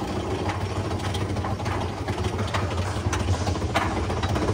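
Big Thunder Mountain Railroad mine-train roller coaster running on its track: a steady low rumble with fast rattling clacks.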